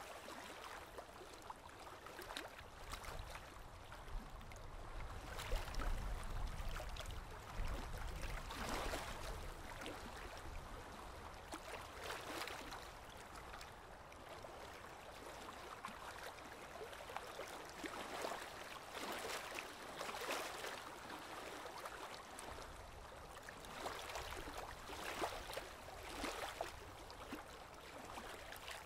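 Small river waves lapping and splashing against stones at the water's edge, a swell of splashing every two to three seconds. A low rumble rises about five seconds in and fades by about nine seconds.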